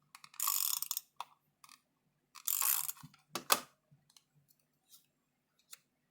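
Paper card pieces being handled and stuck down by hand: two short rasping strokes, then a sharp click and a few light taps.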